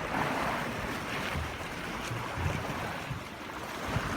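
Blizzard wind gusting on the microphone over a steady wash of waves on the bay.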